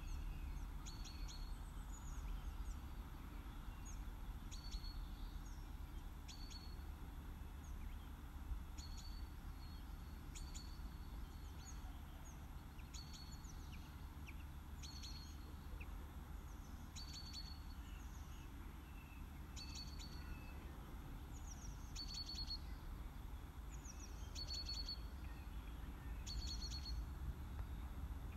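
A small songbird repeating the same short, high chirping phrase about every two seconds, over a low steady rumble.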